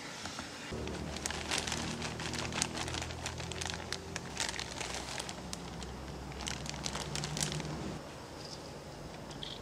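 Plastic bag crinkling and crackling as bread crumbs are shaken out of it into a steel mixing bowl, over a steady low hum that stops near the end.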